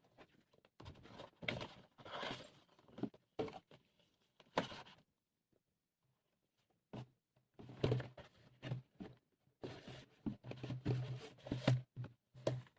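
Handling noise from vinyl record sleeves and packaging: irregular rustling, scraping and light knocks in short clusters, with a pause of about two seconds in the middle.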